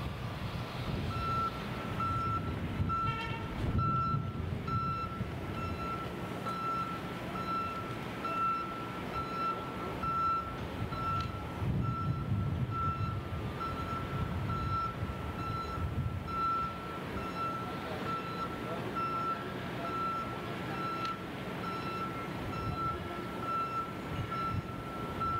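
A heavy-equipment backup alarm beeping evenly, about once a second, over the low rumble of a diesel engine.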